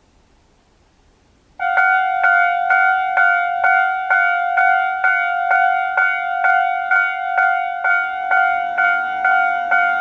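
Japanese level-crossing warning alarm in the Tobu Railway's standard tone, starting about one and a half seconds in and striking about twice a second, warning of an approaching train. A low hum joins near the end as the barrier arms start to lower.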